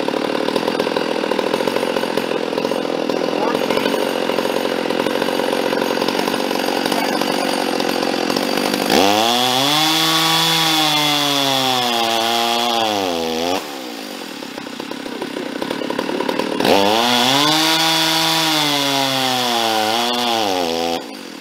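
Ported Stihl MS460 Magnum chainsaw with a gutted-muffler bark box, idling loudly, then opened to full throttle twice against the dyno's load for about four seconds each time, the pitch rising and then sagging before it drops back to idle. The saw is down on power on the dyno, which the owner puts down to a carburetor issue, having leaned it out all the way.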